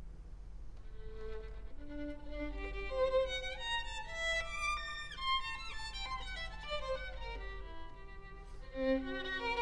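Solo violin playing a line of single notes that begins about a second in, climbs higher step by step with slides between some notes, then falls back, and starts a new phrase from a low note near the end.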